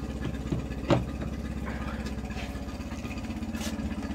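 Small auxiliary outboard motor idling steadily on a water hookup, with a sharp click about a second in.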